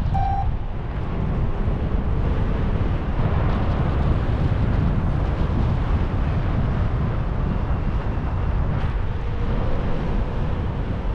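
Wind rushing over the microphone of a paraglider in flight: a steady, loud rumbling buffet. A short electronic beep sounds right at the start.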